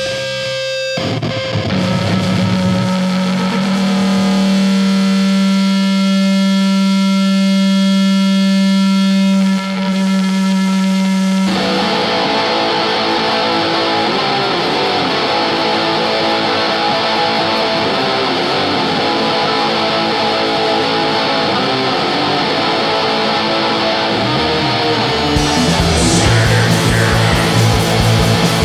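Doom metal band playing live on distorted electric guitars: a long low note is held for about ten seconds, then the full, heavier band sound comes in. Near the end the playing turns more rhythmic and a little louder.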